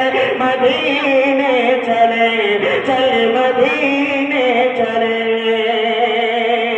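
A man's voice reciting an Urdu devotional salaam in a sung, chant-like melody through a microphone, holding long, drawn-out notes.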